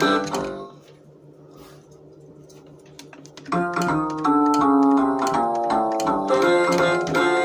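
Hallmark Disney Band figures playing music through their built-in speakers: one tune ends about half a second in, and after a pause of about three seconds the next tune starts.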